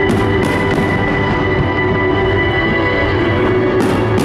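Music with long sustained tones over a fireworks display. A few sharp firework reports cut through it, about three in the first second and another near the end.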